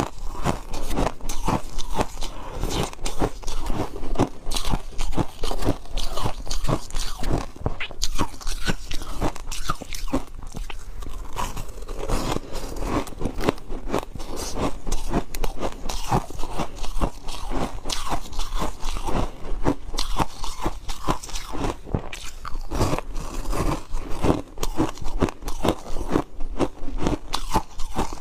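Close-miked crunching of matcha-coated ice being bitten and chewed: a dense, continuous run of sharp crunches.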